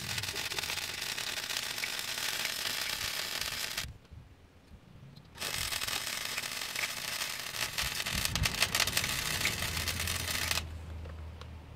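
Wire-feed welder arc crackling and spitting while welding a stainless steel exhaust tip onto the tailpipe, in two welding runs of about four and five seconds with a short pause between. The arc stops near the end, leaving a low hum.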